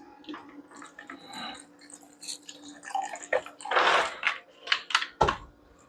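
Blue curaçao poured from a bottle into bar glassware, with small clinks of bottle and glass. A brief splashing pour about four seconds in, then a few sharp clicks and a heavy thump as something is set down.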